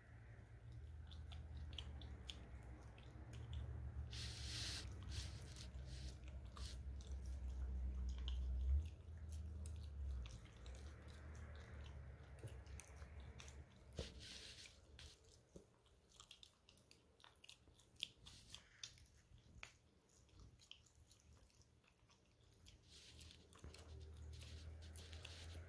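Golden retriever puppy chewing and licking a rubber Kong Puppy Pacifier stuffed with frozen puppy food: faint gnawing and wet licking with many small clicks of teeth on rubber. A low rumble runs under roughly the first ten seconds.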